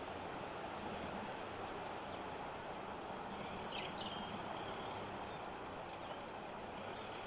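A few faint, short, high bird calls about three to four seconds in, over a steady background rumble.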